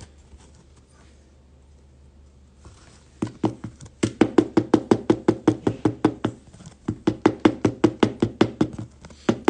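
Rapid, even knocking or tapping, about four to five strikes a second, starting about three seconds in after a quiet stretch, with two short pauses.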